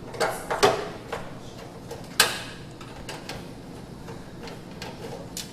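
Metal knocks and scrapes from hand tools and the panels of a front-loading washing machine being taken apart. There are two sharp knocks within the first second and a louder one about two seconds in, then lighter ticks.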